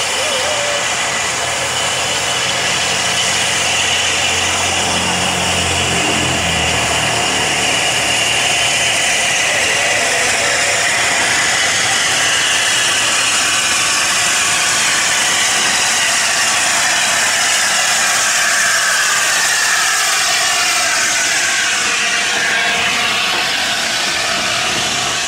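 Steady loud steam hiss from a standing LMS Fowler 4F 0-6-0 steam locomotive leaking steam at its cylinders. In the second half LNER A4 Pacific Bittern, double-heading with a BR Standard Class 5, rolls in and passes close by.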